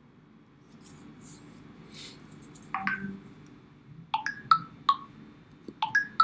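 Phone notification tones: a short chirping beep about three seconds in, then a quick run of similar beeps from about four seconds in, with faint rustling before them.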